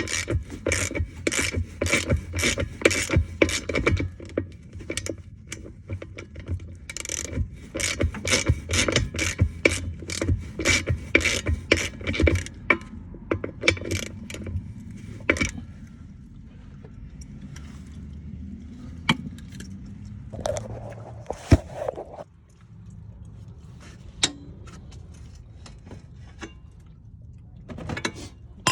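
Metal hand tools clicking and clinking in quick, dense series as a suspension bolt is worked loose, thinning out to scattered clicks after about fifteen seconds, with a brief scrape a little past twenty seconds. A steady low hum runs underneath.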